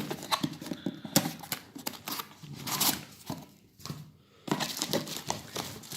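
Cardboard packaging being handled while an appliance is unboxed: rustling and scraping with scattered sharp clicks and taps, the loudest tap about a second in.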